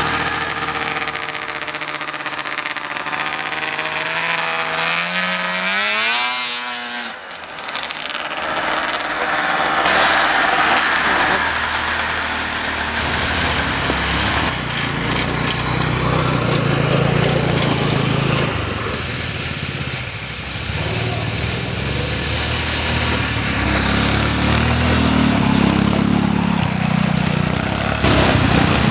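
The 200cc engine of a mini snowmobile running under throttle. Its pitch climbs steadily for the first several seconds as it accelerates, dips briefly, then settles into a steady low drone while the sled runs through the snow.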